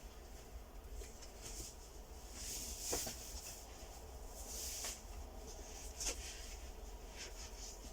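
Quiet room tone with faint rustling and two soft clicks, about three and six seconds in.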